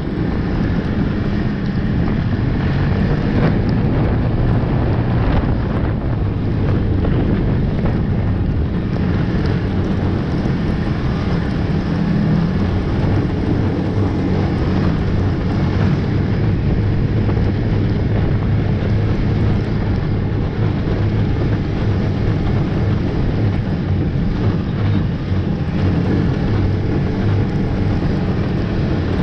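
Snowmobile engine running steadily under way, heard up close from the sled itself, its note shifting slightly with the throttle.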